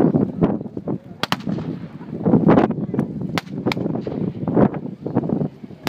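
Blank small-arms fire in a mock battle: irregular sharp shots, single and in quick pairs, over a low rumble.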